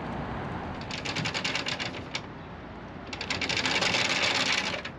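Anchor windlass being cranked by hand with its handle to haul in the chain of a snagged anchor, the pawl clicking rapidly in two bursts, the second longer and louder.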